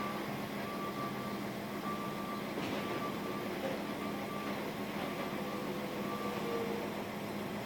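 Backup alarm of a reversing vehicle beeping at about one beep a second, over a steady low hum.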